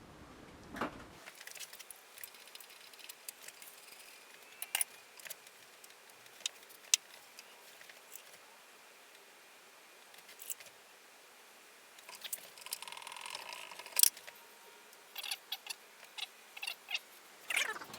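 Scattered light clicks and taps from tools and small metal parts being handled while a bandsaw is taken apart, with a brief scraping stretch about 13 seconds in and a quick run of taps near the end.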